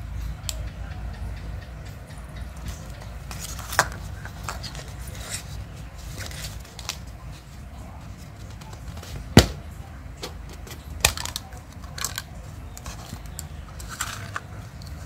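Hard plastic surprise-egg capsule being handled, squeezed and pulled apart, giving a series of sharp plastic clicks and taps, the loudest a little past halfway; a low steady rumble runs underneath.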